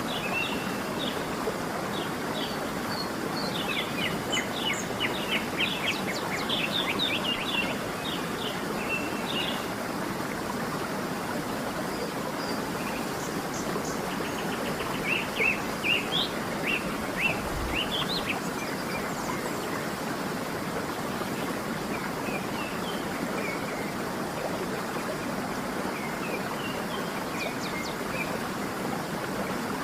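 Steady rush of a waterfall or cascading stream, with songbirds chirping over it in short bursts of quick notes, busiest in two spells early on and around the middle.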